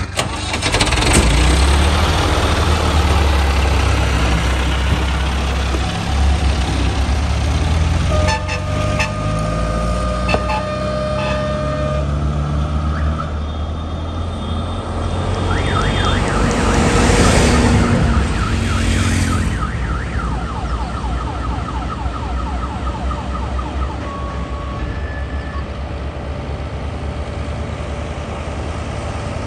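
Heavy vehicle engine running, with a held horn-like tone for a few seconds and, later, a run of rapid warbling alarm tones.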